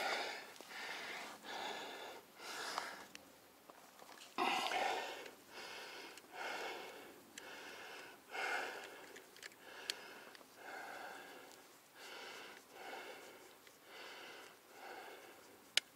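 A mountain biker breathing hard in and out, a breath roughly every second, catching his breath during a short rest stop. Two sharp little clicks cut in, the louder one near the end.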